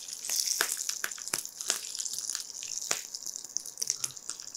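Hot oil tempering of mustard seeds, dried red chillies and curry leaves, poured from a small iron tadka pan onto ground radish chutney and sizzling. It is a high hiss, loudest in the first second, with many small crackles and pops through it.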